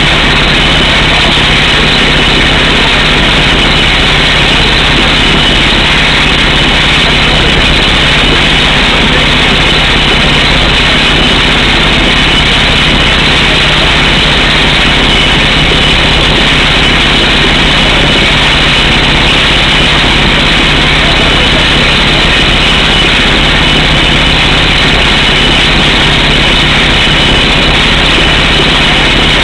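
Down-the-hole air hammer on a truck-mounted digger derrick drilling through solid rock: a loud, steady, rapid hammering with compressed air and rock dust blasting from the hole, over the rig's engine running.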